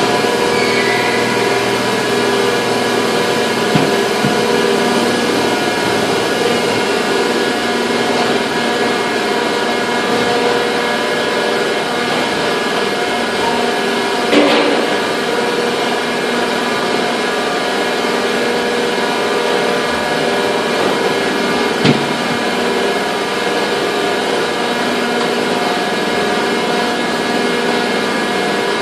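Steady drone of factory molding machinery, a dense hum made of several steady tones. Three sharp knocks stand out: about four seconds in, in the middle, and near the end.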